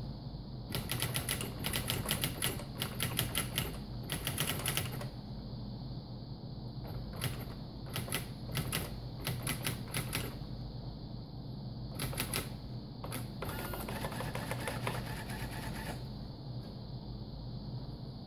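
Xerox 6010 Memorywriter daisy-wheel electronic typewriter printing as it is typed on: rapid bursts of sharp character strikes separated by short pauses, followed near the end by a couple of seconds of a different, whirring rattle.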